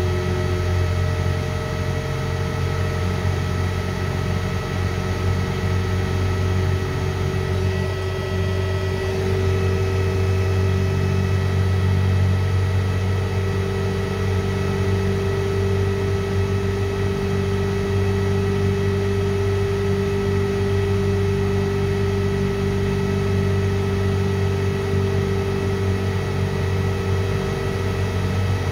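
Electric motor and its variable frequency drive running steadily: a low hum with several faint steady whining tones above it. The motor is drawing about 16 to 18 amps on roughly 136 volts from the drive, which the owner takes for an overload caused by low voltage from the VFD.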